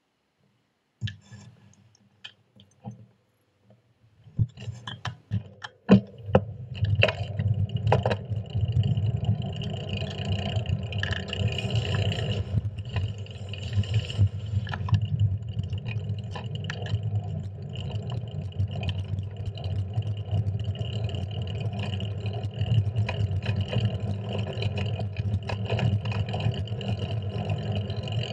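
Bicycle being ridden, heard from a handlebar camera: a few sharp clicks and knocks at first, then a steady low rumble of wind buffeting the microphone, mixed with road noise from the fixed-gear bike.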